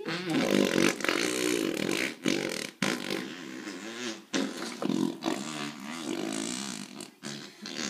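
A run of long, wavering fart noises, several in a row broken by short gaps.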